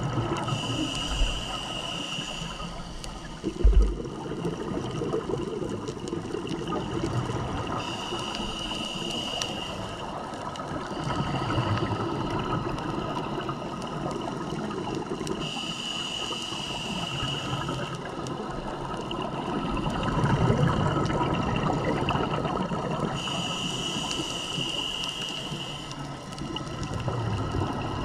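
Scuba diver breathing through a regulator underwater: a hissing inhale comes back every seven to eight seconds, four times, each followed by a rush of exhaled bubbles. A brief low thump sounds about four seconds in.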